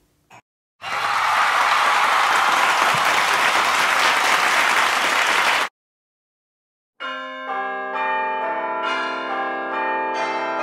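Applause, cut in and cut off abruptly, followed after a second of silence by music of sustained, overlapping bell-like notes.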